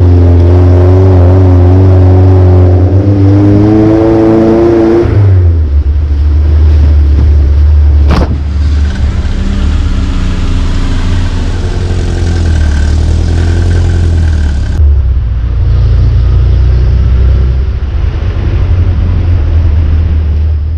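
Off-road jeep engine running hard, its pitch rising over the first five seconds and then dropping, after which it settles into a steady low drone. There is a single sharp click about eight seconds in.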